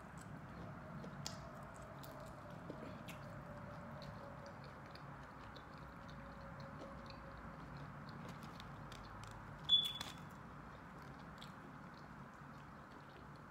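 A person chewing fried fish and fries with the mouth closed, faint, with small scattered mouth clicks. One short sharp click about ten seconds in is the loudest sound.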